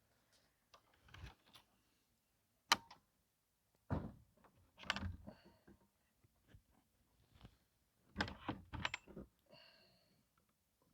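Metal fence-latch hardware and the gate being handled: a sharp click about three seconds in, then two bursts of rattling clunks.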